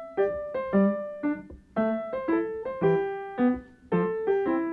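Background piano music: a gentle melody of single struck notes, each fading away after it sounds, at about two to three notes a second.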